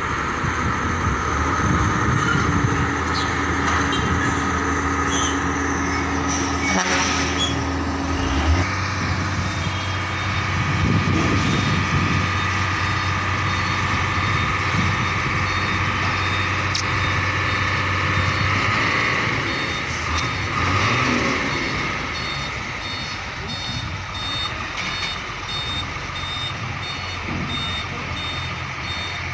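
Diesel trucks running and manoeuvring. In the last third, a reversing alarm beeps at even intervals as a tractor-trailer carrying a shipping container backs up to park.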